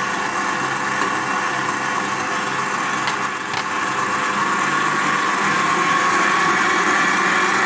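Stand mixer's motor running steadily, its wire whisk beating very cold whole liquid cream and icing sugar in a stainless steel bowl to whip it into chantilly. It grows slightly louder in the second half.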